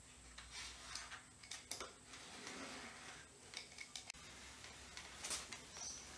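Spline roller pressing rubber spline and fibreglass fly screen mesh into the channel of an aluminium door frame: faint scratchy rolling strokes with small clicks and ticks.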